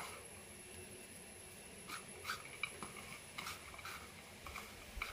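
Faint, irregular soft scratching and rustling of fingers tossing grated raw cauliflower on a porcelain plate.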